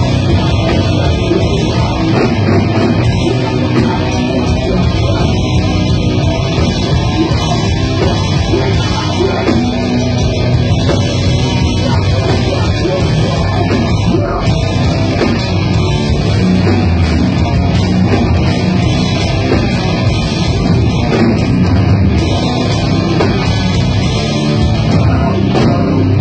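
Heavy metal band playing live at full volume: distorted electric guitars and a drum kit.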